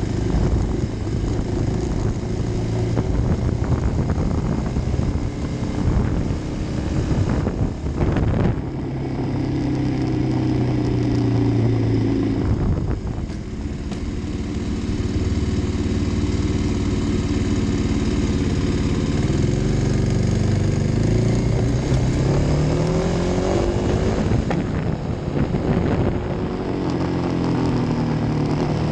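Kawasaki D-Tracker's single-cylinder four-stroke engine running on the move, its pitch climbing and falling several times as the throttle is opened and closed through the gears, with a few brief dips as the throttle is rolled off. Wind and road noise run underneath.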